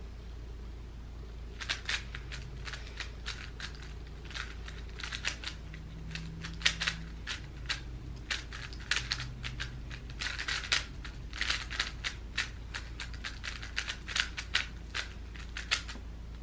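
A 3x3 Rubik's cube being turned fast in a speedsolve: a quick, irregular run of plastic clicks and clacks that starts about a second and a half in.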